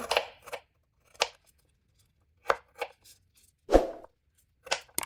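Knife chopping a peeled piece of fresh ginger into small pieces: about eight short, irregularly spaced cuts, the heaviest one about four seconds in.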